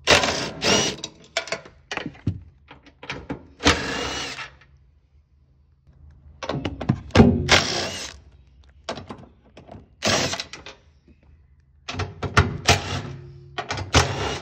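Makita 18V cordless impact driver with a socket rattling out the bolts of a car's rear seat base. It runs in about five short hammering bursts, with clunks of the tool and loosened bolts in between.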